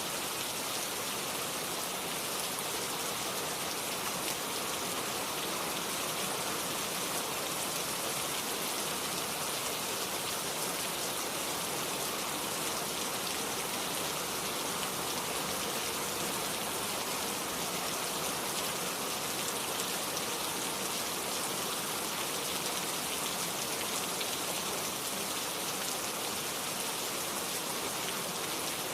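Steady rain falling, a constant even hiss of drops with no let-up or change in intensity.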